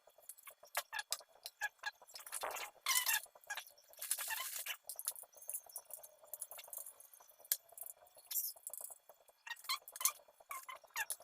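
Metal parts of an angle grinder stand being handled during assembly: scattered light clinks and clicks with a few louder rattling clatters.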